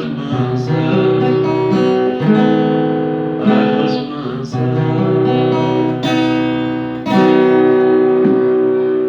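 Instrumental music ending a song: plucked-string, guitar-like chords held and changed every second or two, without singing.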